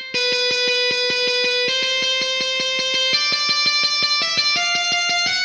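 A guitar-like software instrument played in GarageBand, one note picked over and over about six or seven times a second, stepping up in pitch three or four times as the riff climbs.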